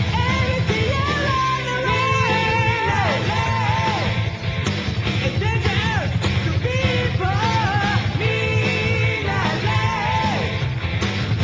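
1980s Japanese hard rock recording: a full band with a high, gliding, wavering lead voice over a dense, steady backing.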